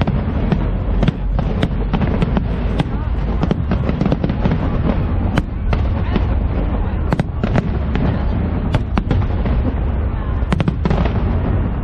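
Fireworks display: shells bursting in rapid, irregular succession, sharp cracks over a continuous low rumble.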